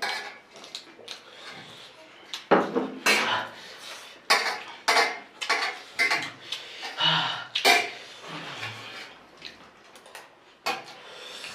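Spoons clinking and scraping against dishes during fast eating, in irregular clatters with brief pauses, with a few short vocal sounds mixed in.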